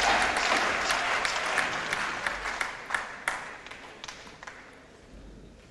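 Arena crowd applauding after a point, the clapping fading away over about four seconds.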